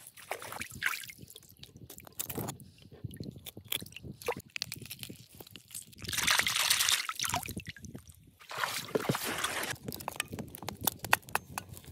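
Water sloshing and dripping as hands clean and rinse a fish in shallow river water, loudest about six seconds in. Short scrapes and clicks of knives whittling wooden sticks come near the end.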